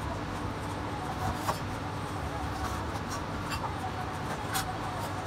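Hiroshi Kato gyuto chef's knife slicing through raw meat, the blade tapping sharply on a plastic cutting board three times, over a steady background hum.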